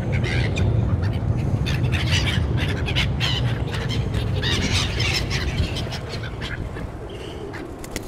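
A flock of black-headed gulls calling, with many short, harsh squawks overlapping, as they squabble over bread thrown onto the water. Under them runs a steady low rumble. The calls thin out and grow quieter in the last couple of seconds.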